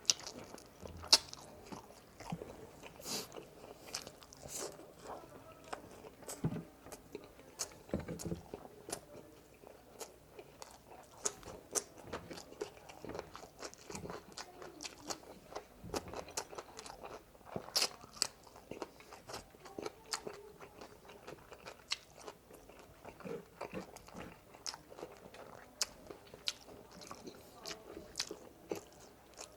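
Close-miked chewing and biting of spicy frog legs, with frequent sharp crunches at an irregular pace.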